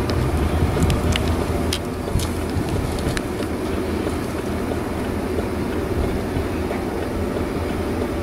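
Parked fire brush truck idling, a steady low rumble, with a few faint sharp ticks in the first three seconds.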